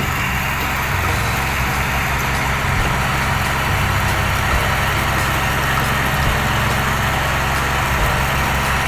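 A fishing boat's engine running steadily at idle, with an even hiss above it.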